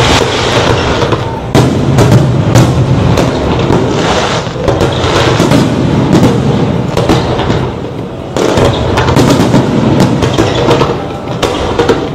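Fireworks display: a continuous barrage of bangs and booms with dense crackling between them, easing briefly about two-thirds of the way through.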